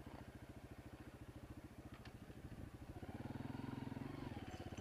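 Honda CRF230F's single-cylinder four-stroke dirt-bike engine running at low revs. About three seconds in it gets louder and its pitch rises as the throttle opens.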